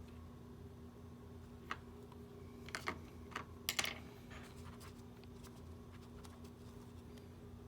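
A few light clicks and taps of small tools and parts being handled, most of them clustered just before the middle, over a faint steady hum.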